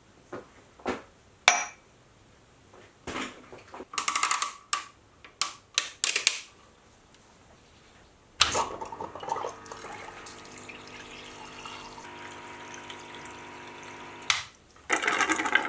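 A machine coolant pump starts with a click about eight seconds in and hums steadily while its stream pours and splashes into a ceramic mug, then cuts off about six seconds later. Before it come a string of separate clicks and knocks, and near the end a short, loud noisy burst.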